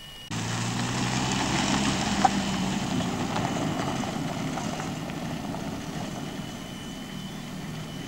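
An engine running steadily under a wide rushing hiss, cutting in abruptly at the start and slowly fading, with one sharp click about two seconds in.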